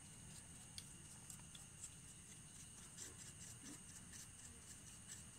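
Near silence: a faint steady high-pitched hum with a few soft ticks.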